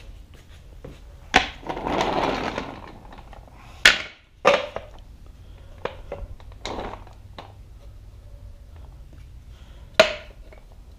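Wooden boards knocking and clacking as they are set down onto a carpeted furniture dolly, with about a second of scraping around two seconds in, then several sharp wooden knocks spread through the rest.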